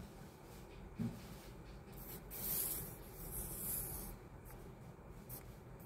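Paper rustling and rubbing as a hand handles paper cutouts on a paper sheet, loudest in a stretch in the middle, with a soft thump about a second in.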